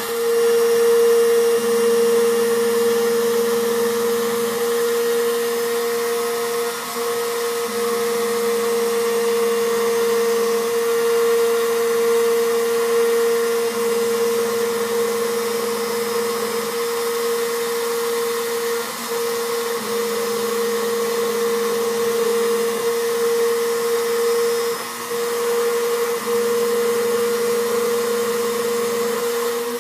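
CNC machine cutting: a steady high whine with lower motor tones that jump in pitch every second or two as the cutting head changes speed and direction.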